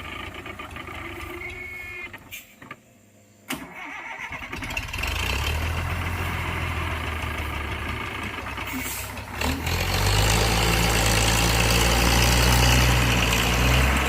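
Heavy road-works vehicle's engine running with a steady low hum. It cuts out briefly about three seconds in, then comes back louder and works harder from about ten seconds in. The vehicle is struggling to climb the road and getting stuck.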